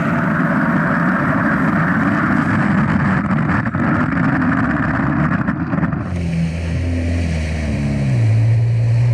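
Turbocharged drag-racing jet ski running at full throttle, its engine sound mixed with the dense rush of water spray and wind. About two-thirds of the way through it cuts to the ski at low speed, where the engine note steps down in pitch and settles into a steady low hum.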